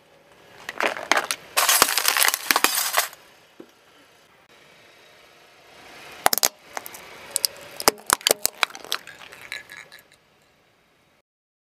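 Glass crushed under a car tyre: a loud burst of crunching and shattering about a second in, then, after a pause, a string of sharp pops and cracks as small painted glass light bulbs burst one after another. The sound cuts off near the end.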